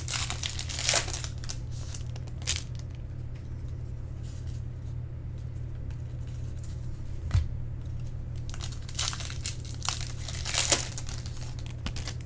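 Trading-card pack wrappers crinkling and tearing as packs are opened and cards handled, in a few short rustling spells near the start and again near the end, over a steady low hum.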